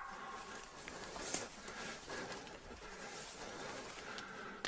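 Rustling of dry grass and brush with footsteps as someone walks through thick undergrowth.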